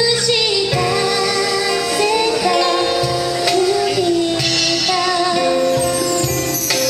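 Woman singing a slow ballad live, holding long notes with vibrato, backed by a small band of keyboard, acoustic guitar, bass and percussion.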